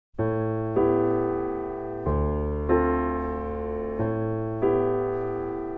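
Background piano music of slow, sustained chords over a deep bass note. It starts suddenly just after the beginning, and each chord rings and fades before the next comes, a change about every second.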